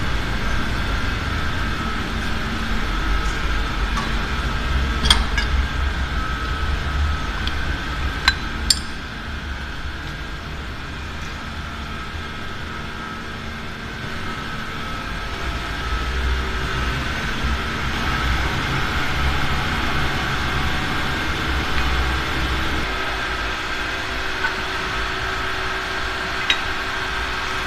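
Steady machinery drone with a low rumble, with a few sharp metal clinks of steel drill rods and a core barrel being handled: one about five seconds in, two close together a few seconds later, and one near the end.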